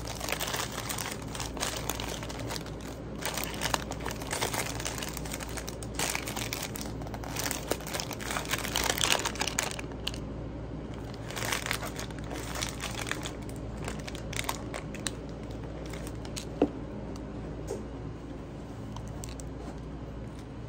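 Wrapping crinkling and rustling as it is handled, in dense irregular spurts for the first half and sparser ones after, with one sharp click about two-thirds through. A steady low hum runs underneath.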